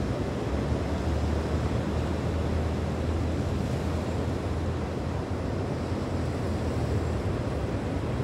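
Steady sea surf and wind, with a low rumble of wind buffeting the microphone.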